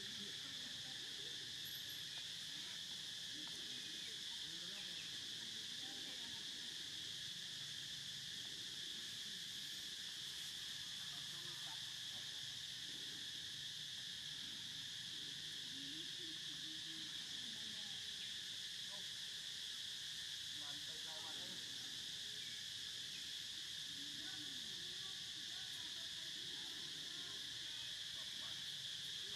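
Steady chorus of insects, a continuous high-pitched drone that does not break or change.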